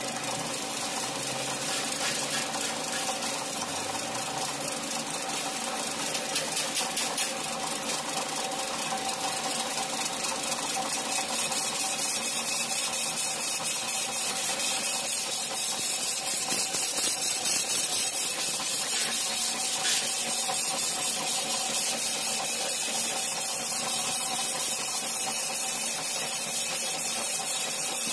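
Metal lathe running steadily, its spindle turning a cast centrifugal pump part in the chuck, with a fast, even mechanical ticking over the running noise.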